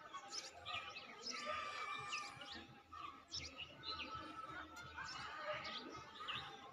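Small birds chirping: many short, high calls, overlapping and scattered throughout.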